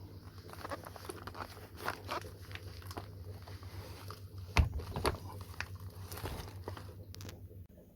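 Handling noises: rustling and clicking as things are moved about, with one sharper knock about four and a half seconds in, over a steady low hum that stops near the end.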